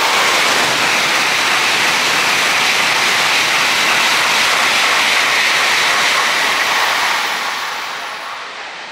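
N700-series Shinkansen bullet train passing through the station at high speed: a loud, steady rushing noise that holds for about seven seconds, then fades away near the end.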